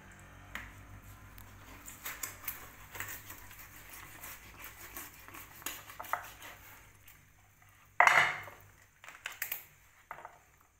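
A knife cutting into and prising open a softshell turtle on a wooden board: many short clicks and scrapes of the blade against the shell and board, with one louder burst of noise about eight seconds in.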